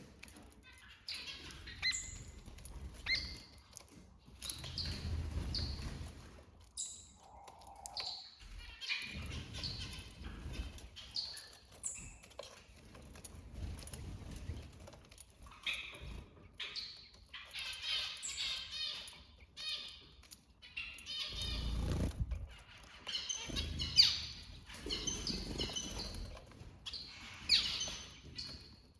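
Small birds chirping: many short, high notes, some sliding down in pitch, with quicker twittering runs that grow busier in the second half. Dull low rumbles come and go now and then.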